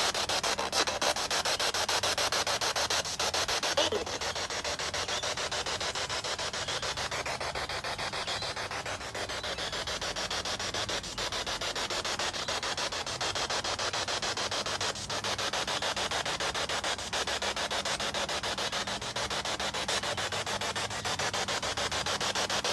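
Spirit box sweeping through radio stations: a steady hiss of static chopped into rapid, even pulses.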